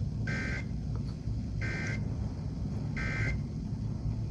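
EAS/SAME end-of-message data bursts on a NOAA Weather Radio broadcast: three short, identical two-tone digital screeches, about 1.3 seconds apart, over steady low radio noise. They signal the end of the severe thunderstorm warning.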